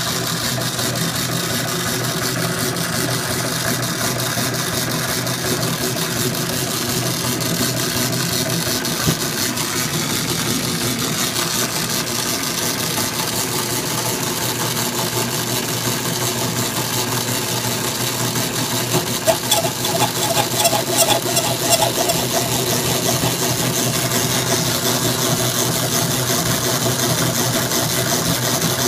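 Dayton power hacksaw running steadily, its blade stroking back and forth through metal round stock clamped in the vise. The cut is being made dry, without lubricant. A burst of louder clicking and rattling comes about two-thirds of the way through.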